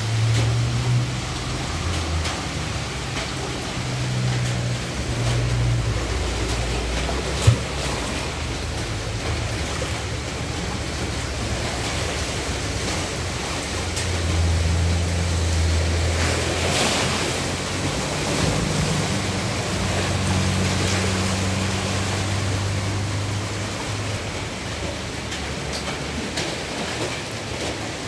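Heavy rain pouring down in a steady, even rush, with low rumbling that comes and goes. One sharp knock sounds about seven and a half seconds in.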